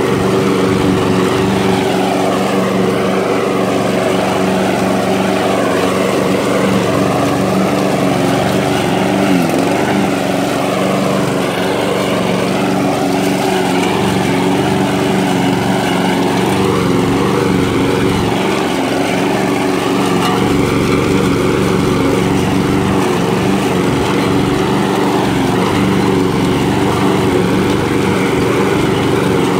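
Walk-behind gasoline lawn mower engine running steadily under load while cutting grass, with a brief dip in pitch about nine seconds in.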